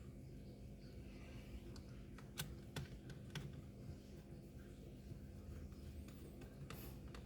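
A few faint, sharp clicks and taps of hands working on an opened laptop, spread across a few seconds over a low steady hum.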